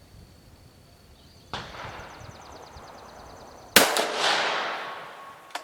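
A single shot from a Dutch Beaumont 11 mm rifle firing a handloaded cartridge, about two-thirds of the way in, sharp and followed by a long fading echo.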